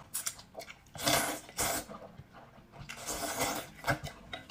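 A person slurping broad flat noodles and chewing, with two long noisy slurps, one about a second in and another about three seconds in.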